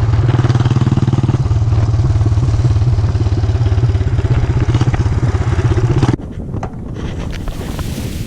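Yamaha SR400's single-cylinder engine running steadily under riding, its pitch stepping once about a second and a half in. It cuts off suddenly about six seconds in, leaving wind noise on the microphone and scattered clicks.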